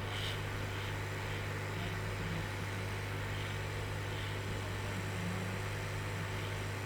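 Hot air rework gun blowing steadily on a chip soldered to a laptop motherboard, with a constant low hum and airy hiss while the solder heats toward melting.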